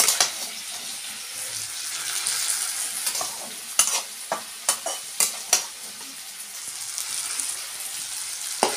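Boiled chana and palak greens going into hot oil with fried onion, garlic and chilli in a frying pan, sizzling steadily. A handful of sharp clinks of a utensil against the pan come about four to six seconds in.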